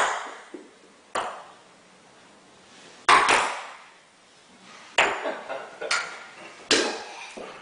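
A toddler's toy plastic golf club knocking small plastic golf balls: about six sharp clacks, one to two seconds apart, with a quiet gap early on.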